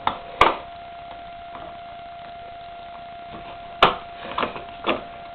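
A few sharp clicks and knocks over a steady faint high hum.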